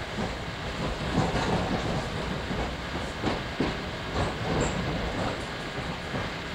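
NJ Transit commuter train rolling along the track, heard from inside the car: a steady rumble with irregular clacks and knocks of the wheels over rail joints and switches.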